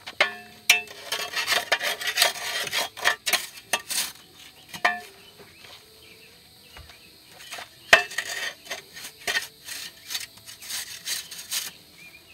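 Steel garden hoe scraping and chopping packed red clay soil in repeated strokes, levelling the ground so a concrete block pier will sit level, with a few sharp knocks among the strokes.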